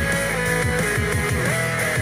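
Rock music with guitar and a steady drum beat, played through a Zealot S67 portable Bluetooth speaker.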